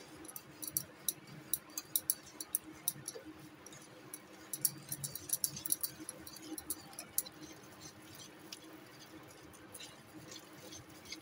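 Wire whisk clicking against a glass mixing bowl while stirring a thick semolina (rava) and curd batter: a run of light, quick clicks that thins out after about seven seconds.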